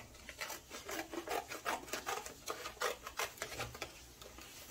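Scissors cutting through a stiff paper plate: a quick run of crisp snips, a few a second, that eases off near the end.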